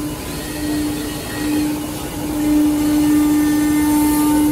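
Five-axis CNC router spindle running with a steady whine as its cutter carves a wooden chair back, the cutting noise growing louder about halfway through.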